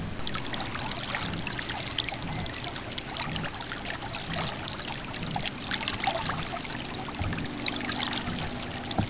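Water trickling and lapping against the hull of a small sailing dinghy under way: a steady, dense patter of small splashes.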